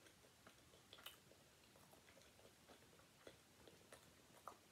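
Faint chewing of a mouthful of Big Mac burger: soft, scattered wet mouth clicks, a little louder about a second in and again near the end.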